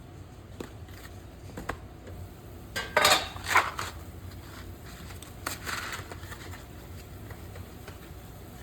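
Kitchen clatter of utensils and cookware being handled: a few light knocks and clicks, with two louder bursts of rattling about three and six seconds in, over a steady low hum.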